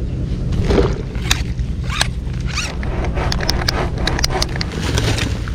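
Fishing tackle being handled: an irregular string of sharp clicks and scraping noises, growing denser in the second half, over a steady low rumble.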